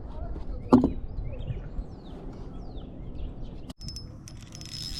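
Small birds chirping over a low, steady outdoor rumble, with one sharp knock about a second in.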